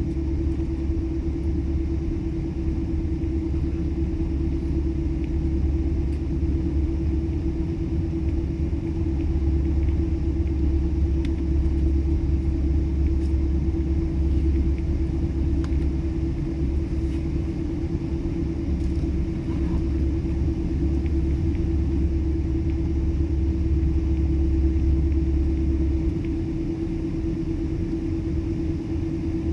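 Cabin of a jet airliner taxiing after landing: a steady low rumble from the idling engines and the wheels rolling over the taxiway, with a constant hum above it. The deepest part of the rumble drops away near the end.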